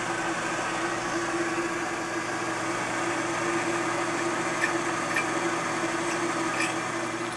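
Vertical milling machine's spindle motor running steadily with a drill in the chuck, fed down into the end of a plate, with a few light ticks in the second half.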